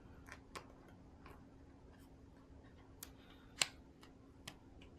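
Faint, scattered clicks and ticks from a vinyl pinball decal and its backing being handled, with one sharper snap a little past halfway, over a low steady hum.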